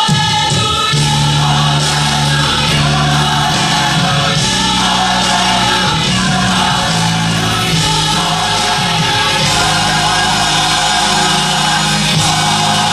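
Gospel music with a choir singing, loud and steady.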